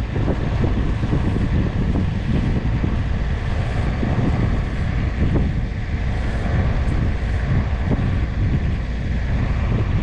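Wind buffeting the microphone, steady and gusty, over the low rumble of an idling tractor engine.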